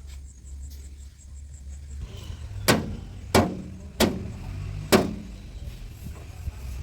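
Heavy diesel engine running low and steady, with four sharp loud knocks over about two seconds in the middle.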